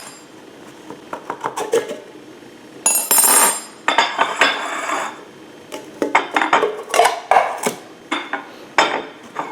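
Metal cutlery clinking and scraping against dishes as a freshly baked muffin is pulled apart. It comes as scattered short knocks, a longer scrape about three seconds in, and a cluster of clinks near the end.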